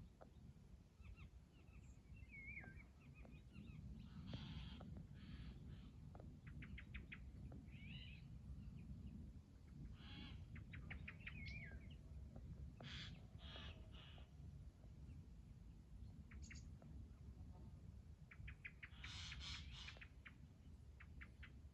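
Faint songbirds calling: scattered short chirps, whistled notes and quick clicking trills, over a steady low rumble.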